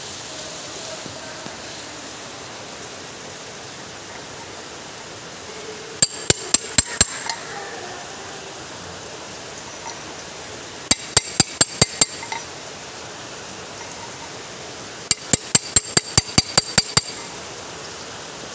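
Metal-on-metal striking on a socket used as a seal driver, tapping a new oil seal into the housing of a Toyota Corolla power steering rack. The strikes come in three quick bursts: about six, then eight, then a dozen sharp ringing taps.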